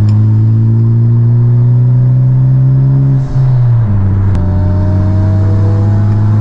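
Honda Civic Type R's turbocharged four-cylinder engine heard from inside the cabin, pulling under acceleration with its pitch rising for about three seconds. A brief dip just after three seconds in, with the pitch dropping, marks an upshift, and then the engine climbs steadily again in the next gear.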